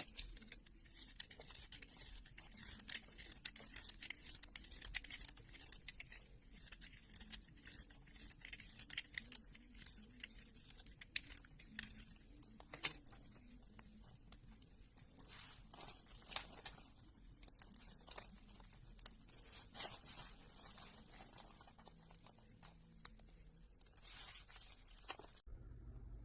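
Slime being squeezed and worked by hand: a dense run of irregular crackling clicks and pops, with sharper snaps here and there, stopping suddenly near the end.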